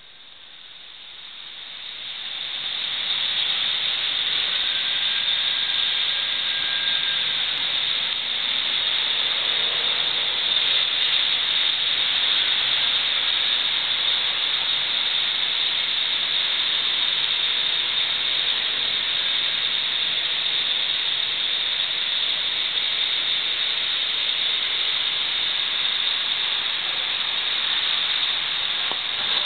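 Rain pouring down: a steady hiss that swells over the first three seconds and then holds.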